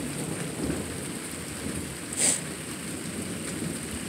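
Rain falling with a low rumble of thunder, under a thin steady high tone. About two seconds in comes one short rasping rattle, which the listener takes for an insect, a cricket mimicking a rattlesnake, rather than a real rattlesnake.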